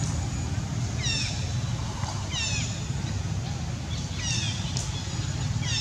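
A high-pitched animal call, a quick cluster of downward-sliding notes, repeated four times about every one and a half seconds over a steady low rumble.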